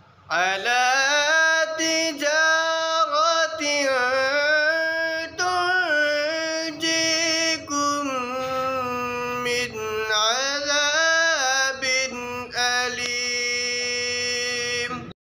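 A young man's voice reciting the Quran in the melodic chanted style (tilawat), with long held notes and ornamented turns rising and falling in pitch. It cuts off abruptly near the end.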